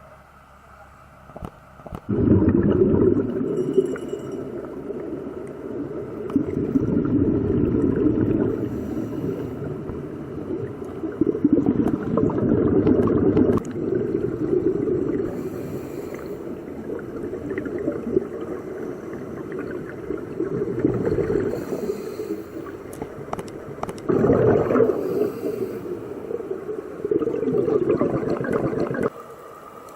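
Underwater bubbling and rushing, as heard through a camera housing: a scuba diver's exhaled regulator bubbles, surging every four to five seconds with each breath.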